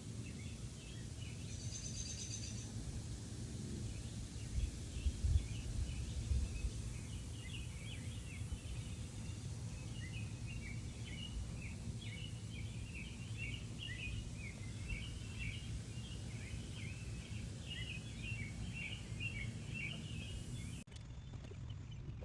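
Many small birds chirping continuously over a low rumble, with a few low bumps about five seconds in.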